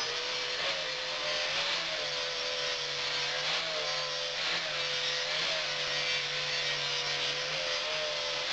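Electric power tool running continuously against steel, with a hiss of grinding or cutting. Its motor whine dips in pitch briefly every second or so as it comes under load.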